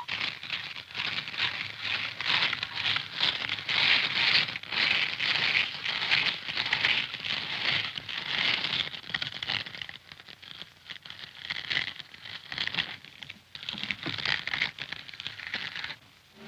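Cartoon sound effect of a hand-cranked meat grinder grinding: a continuous, irregular crunching and crackling rasp that surges and eases as the crank turns, fading out near the end.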